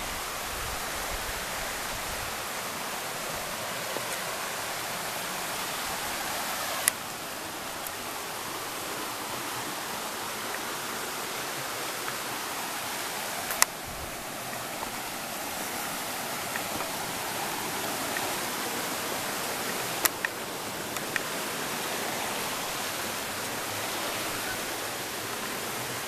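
Steady rush of water from a waterfall and rocky stream, with sharp clicks a quarter, half and three quarters of the way through.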